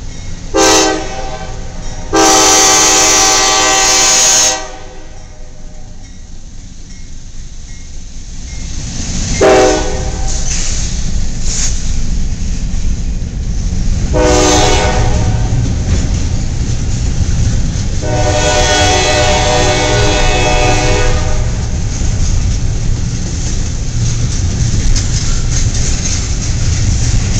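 Norfolk Southern double-stack freight train approaching and passing. The lead locomotive's air horn sounds a short blast, a long one, two more short ones and a final long one. A low rumble of the train rolling on the rails builds up about a third of the way through and stays loud to the end.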